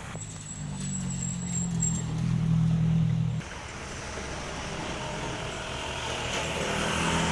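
A motor vehicle's engine running with a steady low hum, faint high whine early on. About three and a half seconds in it cuts abruptly to a steadier, rising rumble with a hiss like tyre or road noise.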